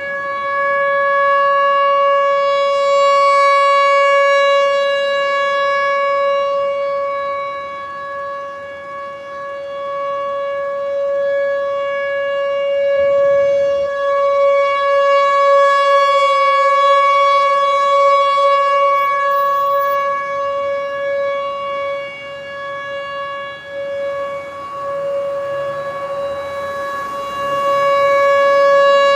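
Outdoor tornado warning siren sounding a steady, unwavering tone during a test, its loudness slowly swelling and fading.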